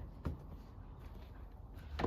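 A single light click or knock about a quarter second in, from handling the plastic door panel and its clips, over a faint low hum.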